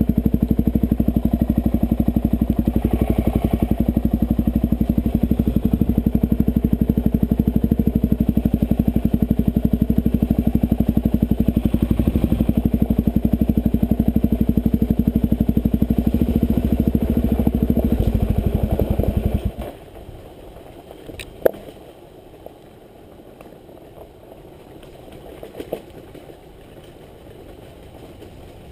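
Suzuki DR-Z400's single-cylinder four-stroke engine running steadily at a constant pace on a dirt trail. About two-thirds of the way in, the engine sound cuts out abruptly, leaving a much quieter rolling noise with a few sharp clicks.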